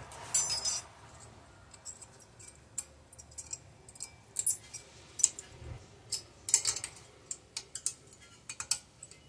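Thin steel brake hardware clips clinking and clicking against the caliper bracket as they are pressed into place: a string of light, irregular metallic taps and clicks.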